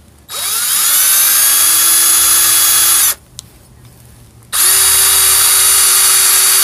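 Cordless drill with a wood bit boring through a leather strap: the motor whines up to speed, runs steadily for nearly three seconds and stops, then starts again about a second and a half later.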